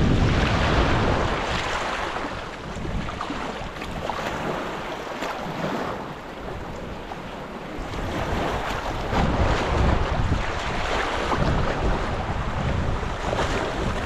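Small sea waves washing onto a sandy shore, with wind buffeting the microphone as a low rumble that eases for a few seconds in the middle and picks up again after about eight seconds.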